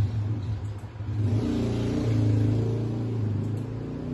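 Soundtrack of a movie clip played through small desktop speakers: a low, steady rumble with a hum that grows louder about a second in.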